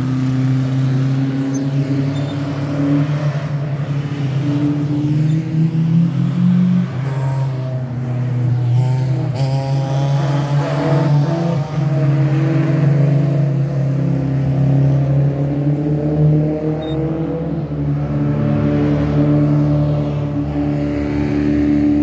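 Historic racing car engines revving hard and accelerating up a hill climb course, several cars passing one after another. The pitch climbs, drops back and climbs again.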